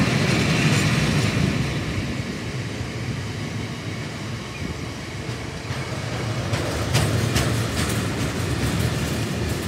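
Freight train of bogie tank wagons rolling past close by: a steady rumble of steel wheels on the rails, easing a little midway, with a few sharp clicks about seven seconds in.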